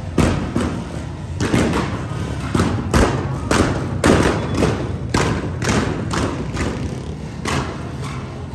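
A run of heavy, irregular thumps, roughly two a second, over the steady low rumble of many motorcycle and scooter engines.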